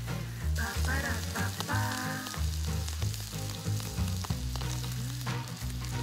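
Food sizzling and frying in a skillet on a portable gas camp stove, heard under background music with a bass line and a melody.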